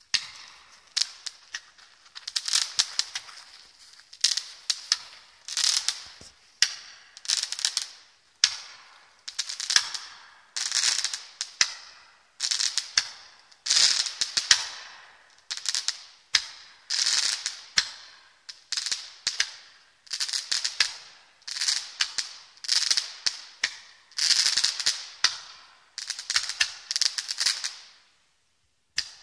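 Klasek R5420K roman candle firing crackling comets one after another, about one shot a second: each a pop followed by a burst of crackling as the comet's trail breaks up. The shots stop briefly near the end before one more.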